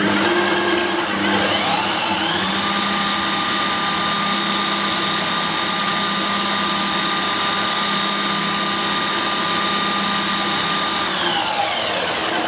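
Blender attachment on a Bosch MUM5 kitchen machine running with a liquid marinade inside: the motor whine rises as it spins up over about two seconds, holds steady, then falls away as it is switched off near the end.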